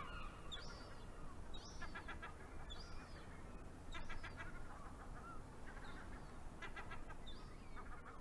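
Gulls calling: a series of laughing calls, each a quick run of short notes, coming about once a second, with higher, drawn-out mewing notes between them.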